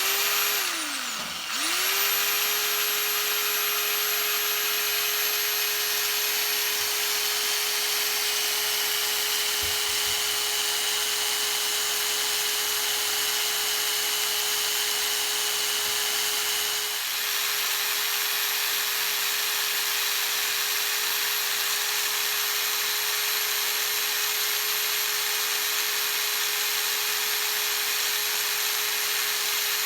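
A small electric motor, like a power drill, running at a steady speed with a constant whine as it spins a Smiths chronometric speedometer for an accuracy test. Its pitch sags and recovers about a second in, then holds steady.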